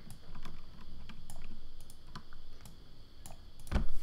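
Scattered clicks of a computer keyboard and mouse in use, with one louder dull thump near the end.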